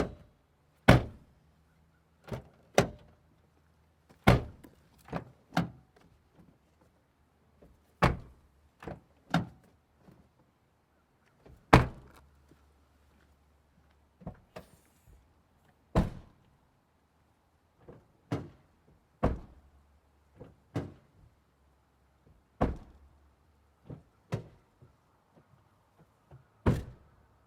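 Car doors being shut, a series of about twenty sharp thuds at irregular intervals, some coming as quick pairs of a latch click and the slam.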